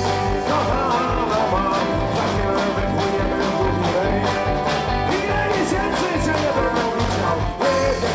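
Irish-style folk-rock band music: electric guitars over a steady drum beat, with a lead melody line.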